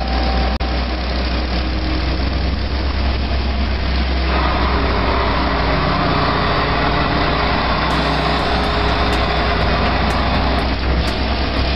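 Ingersoll Rand ECM 350 crawler drill rig running steadily, a heavy mechanical drone with a strong low hum; about four seconds in it takes on a louder, harsher upper noise.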